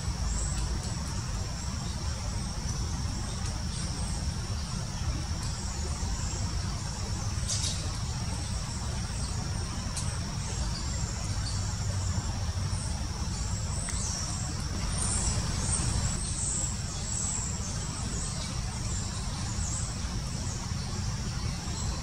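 A steady low rumble of background noise with a thin, steady high tone over it, and a few brief high bird chirps, mostly around the middle. No clear woodpecker hammering stands out.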